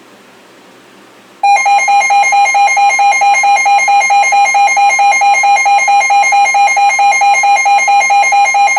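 Weather radio's alert alarm going off: a loud electronic beep pulsing rapidly, starting about a second and a half in. It signals that a new warning has just been received.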